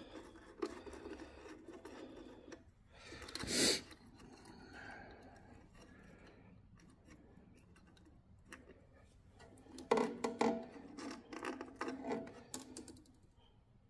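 Small metal parts clicking and clinking as the link plates and nuts are taken off a generator's terminal block and the ring-lug leads are handled. There is a brief louder rustle about three and a half seconds in, and a busy run of clinks near the end.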